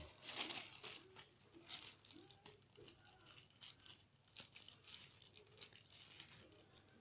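Plastic packaging crinkling and rustling faintly in the hands as an accessory is unwrapped, with scattered small clicks.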